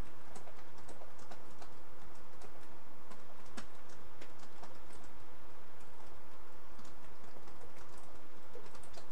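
Irregular light clicks and ticks, several a second, from hand soldering: a soldering iron tip and tweezers touching a gold SMA connector and circuit board. Underneath runs a steady hum.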